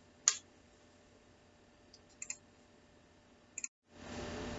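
A few sharp clicks: one louder click just after the start, then two quick double clicks about two and three and a half seconds in. After a moment of dead silence, a steady low hiss of room noise starts about four seconds in.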